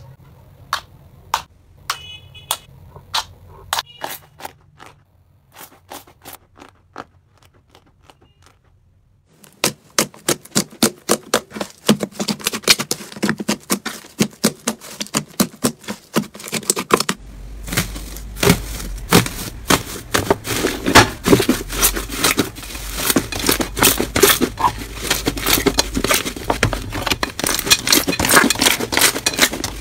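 Hands pressing and squeezing slime, making sharp pops and clicks as trapped air bursts. The pops are sparse at first, come in a quick, dense run from about nine seconds in, and turn into a louder, fuller crackling from about seventeen seconds in.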